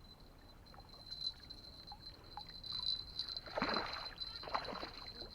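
Water sloshing and splashing in two short rushes about three and a half and four and a half seconds in, over a faint steady high-pitched whine.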